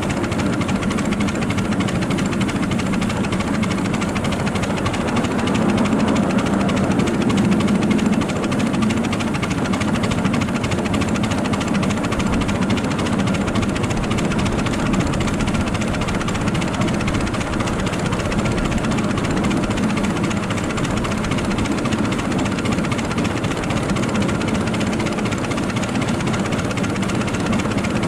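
7.5-inch gauge miniature train running along the track: a steady rumble of wheels on rail, swelling slightly about six seconds in.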